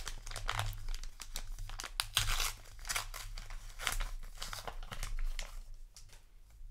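Foil trading-card booster pack wrapper crinkling and tearing as it is pulled open by hand: a dense run of crackles that dies down about five and a half seconds in, leaving a few faint ticks.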